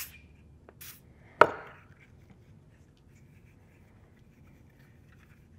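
Two brief hisses from an aerosol can of silicone lubricant sprayed onto the water pump's O-rings, then a sharp knock about a second and a half in as the metal can is set down on the wooden workbench. Faint handling of the plastic pump follows.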